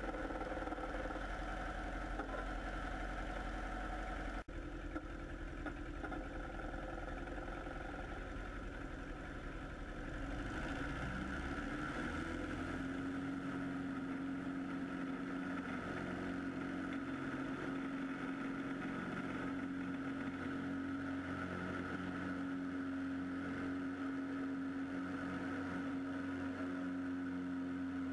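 American Champion Super Decathlon's four-cylinder Lycoming engine and propeller running at low power while the plane taxis. About twelve seconds in, the engine note rises and settles into a steady hum.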